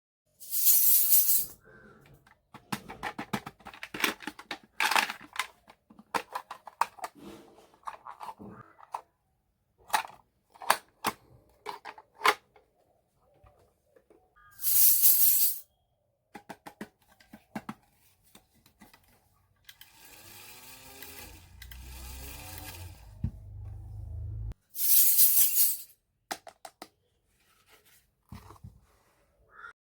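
Small plastic toy kitchen pieces clicking, tapping and clattering as they are handled. The clicks are broken by three loud hissing rustles of about a second each, and a little after the middle comes a steady electronic sound with wavering tones over a low hum, lasting a few seconds.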